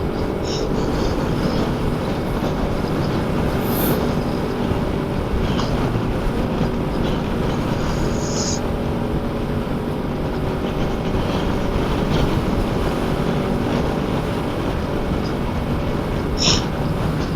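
Motorcycle engine running at a steady cruising speed under heavy wind rush on the microphone from riding in a strong wind, with a few faint clicks.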